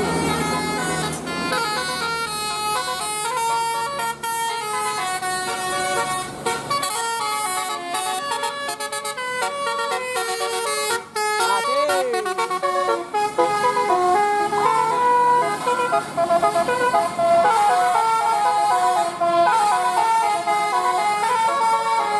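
Telolet basuri musical vehicle horn playing a melody in quick stepped notes, several tones sounding together, with a short rising-and-falling swoop about twelve seconds in.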